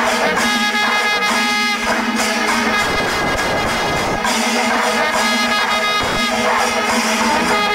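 Background music: held wind-instrument notes over percussion.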